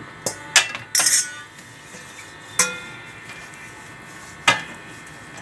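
Kitchen utensils knocking and clinking against a baking tray: about five sharp clatters spread through the few seconds, the loudest cluster around a second in.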